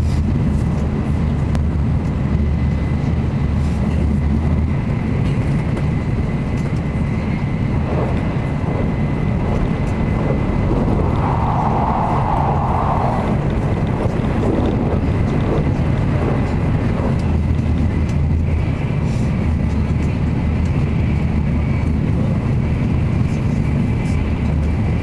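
Cabin running noise of an N700 series Shinkansen cruising at about 235 km/h: a steady low rumble with a faint steady high tone above it, and a brief higher sound about halfway through.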